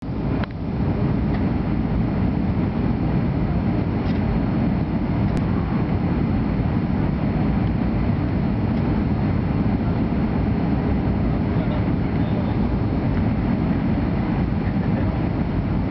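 Steady low rumble of an airliner's cabin on its landing approach: engine and airflow noise heard from inside the plane.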